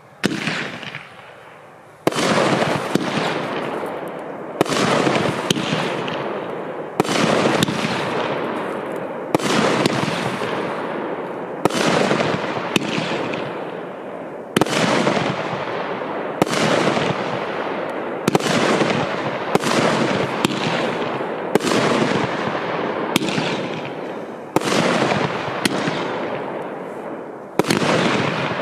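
Piromax PXB2203 'Fireball' 30 mm consumer firework battery (cake) firing its shots in sequence: a sharp report about every one and a half to two seconds, each followed by a noisy fading tail from the burst. The first shot's burst about two seconds in is followed by a steady run of shots.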